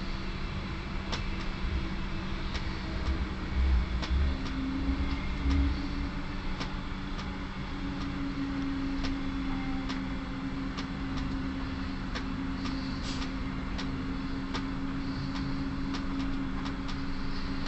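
Inside a moving passenger train: a steady rolling rumble and hum, with irregular sharp clicks and a few low knocks about four to six seconds in.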